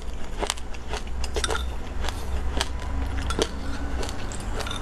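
Metal spoon clinking and scraping against a glass mug of dry mixed seeds, giving a series of sharp clicks at irregular intervals as it scoops.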